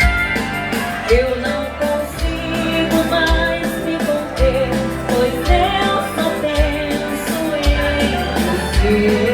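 Band music in waltz time with a singer: a sung melody over held instrument notes, with a deep bass note about once a second.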